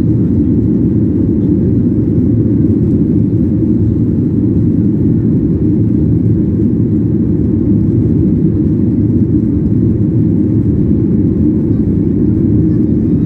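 Jet airliner cabin noise from a window seat: a steady, loud low rumble of engines and airflow as the plane climbs.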